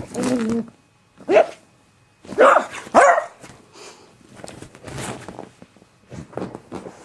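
Dog barking: a short bark about a second in, then two louder barks close together at around two and a half and three seconds, with softer short sounds after.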